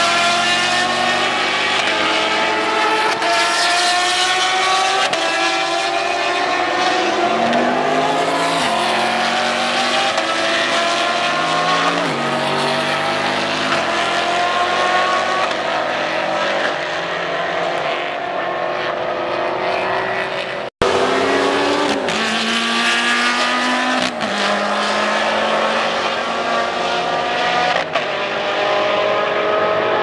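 Race car engines accelerating hard past the track, several at once, each rising in pitch and dropping back over and over through its upshifts. The sound cuts out for an instant about two-thirds of the way through.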